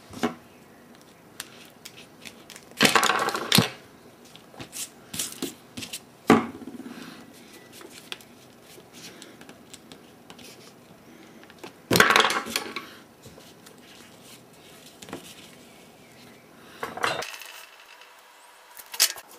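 Close-up handling of small metal hand tools and a circuit board while a resistor is fitted: scattered light clicks and taps, with a few louder metallic rattles and clinks of pliers or tweezers against the board and work surface.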